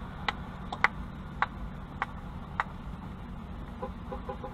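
Stationary car's turn-signal relay ticking just under twice a second over a steady low cabin hum. The ticking stops about two and a half seconds in, and near the end a rapid electronic beeping starts, about seven beeps a second.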